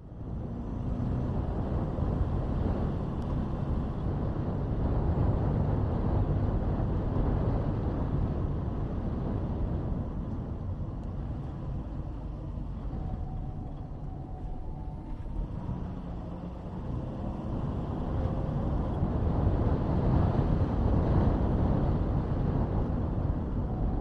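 Car driving along a paved road: a steady rumble of engine and tyre noise that swells and eases, louder about a quarter of the way in and again near the end.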